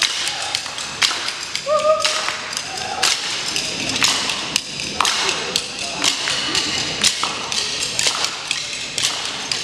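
Percussion ensemble playing drums and sticks: a quick, uneven run of sharp hits and taps.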